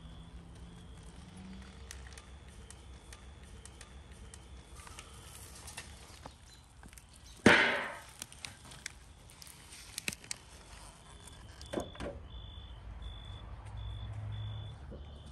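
Outdoor background with crickets chirping in short regular pulses and scattered sharp clicks. About halfway through comes one loud sharp hit that dies away over about half a second.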